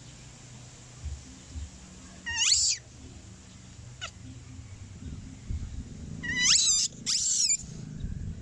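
Baby monkey giving three shrill squealing cries that sweep sharply up in pitch: one about two seconds in, then two close together near the end.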